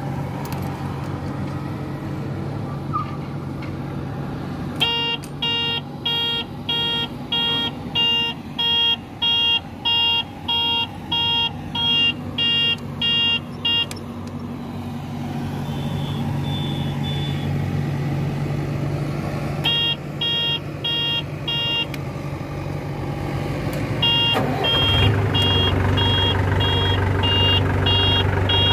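Small tandem road roller's engine running steadily, with its electronic warning beeper sounding in runs of evenly spaced beeps, about one and a half a second. About 24 seconds in, the engine note becomes louder and deeper and the beeping resumes.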